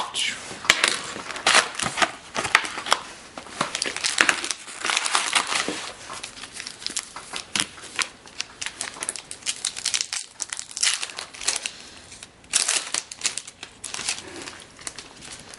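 Plastic wrapping on a box of hockey trading cards crinkling and tearing as it is opened, in a long run of irregular rustles and crackles.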